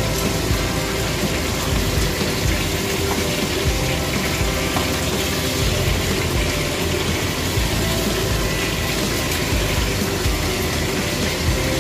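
Small barracuda frying in hot oil in a frying pan: a steady, even sizzle.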